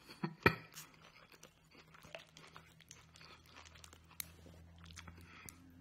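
Chewing a bite of veggie egg roll close to the microphone: faint crunching and wet mouth clicks, with one sharper crunch about half a second in.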